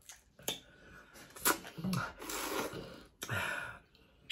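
Breathy sucking and blowing mouth sounds of a person eating crab, with a short low hum about two seconds in and a few sharp clicks.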